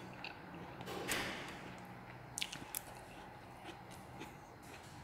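Quiet eating sounds: bamboo or plastic chopsticks picking at a china plate of stir-fried chicken intestines. There are two light clicks about two and a half seconds in, a brief soft rustle about a second in, and faint wet, squishy noises of food being handled.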